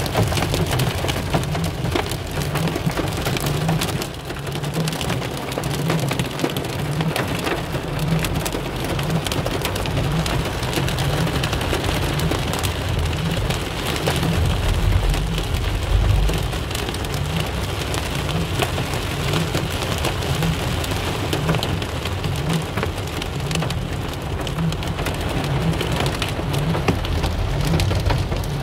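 Heavy rain and hail pelting a car's roof and windscreen, heard from inside the car: a dense, steady hiss with many sharp hits. A low rumble swells about halfway through.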